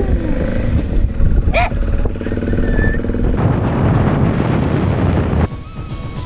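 Motorcycle running on the road, heard from the pillion seat, with a rushing noise that grows about three and a half seconds in. It cuts off abruptly near the end into background music.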